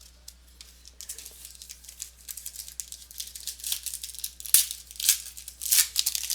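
Crinkling and rustling of a trading-card pack's wrapper being opened and the cards handled: a quick run of crisp, irregular crackles that starts about a second in and is loudest a little past the middle.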